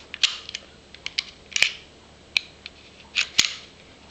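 SIG Sauer SP2340 pistol being handled to check that it is unloaded: a string of sharp metallic clicks with short sliding scrapes of its parts.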